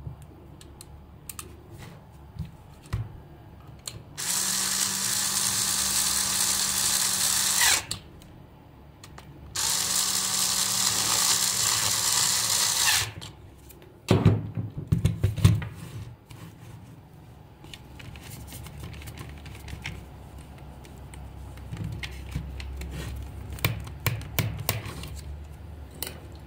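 Cordless electric screwdriver running in two steady spells of about three and a half seconds each, with a short gap between. Knocking and clattering of plastic parts and tools being handled follows.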